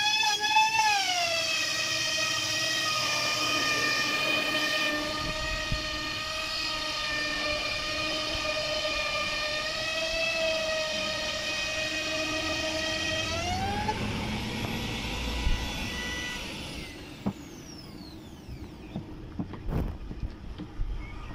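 Handheld electric trim router whining steadily as it cuts a groove into a wooden door panel, its pitch wavering at first under load. About 13 seconds in the whine rises as the bit comes free of the cut, then the router is switched off and winds down with a falling whine. A few clicks and knocks follow near the end.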